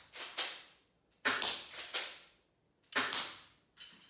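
An airsoft gun firing two shots about a second and a half apart. Each shot is a sharp crack with a second crack close behind, and a softer click comes near the end.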